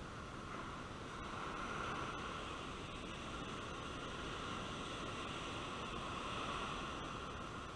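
Surf breaking and washing up a sandy beach, mixed with wind, as a steady rushing noise that swells a little about two seconds in and again near the end.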